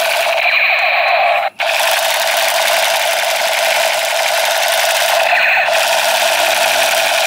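Battery-powered toy space gun's electronic firing sound effect playing through its small speaker: a steady, high, buzzing rattle that cuts out for a moment about a second and a half in.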